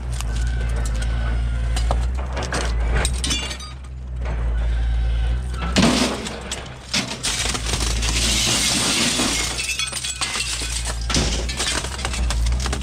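Glass panes in aluminum window frames cracking and shattering as they are handled in a truck bed, with clinks of the metal frames. The shattering is heaviest in a long spell beginning about six seconds in, over a steady low rumble.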